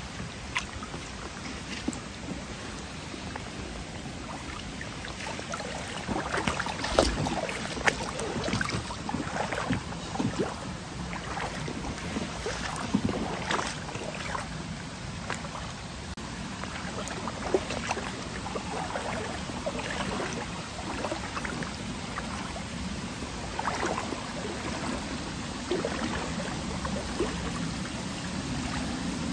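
Feet wading through shallow river water over a stony bed, with irregular splashes and sloshing that pick up about six seconds in, over the steady rush of the stream.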